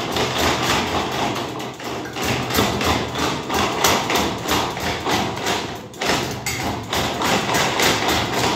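Royal Deluxe ceiling fan running with 10 to 15 kg of bags hung from its hub: a steady low hum under rhythmic knocking, about four to five knocks a second, with a short break about six seconds in.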